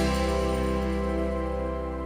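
Background music: a held, slowly fading chord with no beat.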